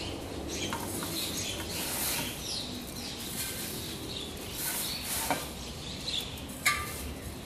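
Birds chirping in short repeated calls, with two sharp clicks in the second half, the second the loudest.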